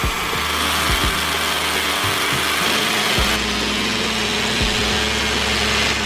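Miniature grain mill belt-driven by a model tractor's small motor, grinding wheat: a steady whirr and rattle whose low hum shifts abruptly a few times.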